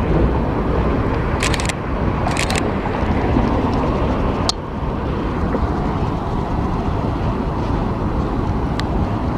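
Steady low rumble of an intermodal freight train rolling along the tracks below, with a few sharp clicks about two seconds in.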